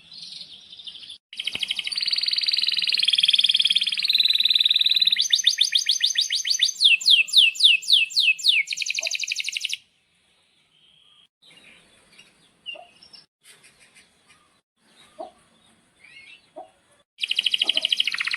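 Male domestic canary singing loud, fast trills, then a rapid run of repeated notes and a series of downward-sliding whistled notes. The song breaks off about ten seconds in, leaving faint scattered chirps, and loud trilling starts again near the end.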